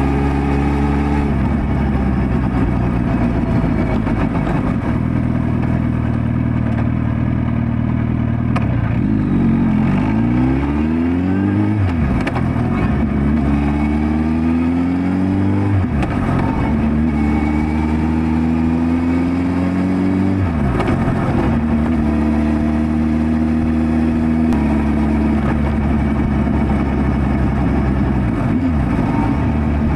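Suzuki GSX1300R Hayabusa's inline-four engine running under way, holding steady revs for stretches and several times climbing in pitch as it accelerates, then dropping back as the rider eases off or shifts.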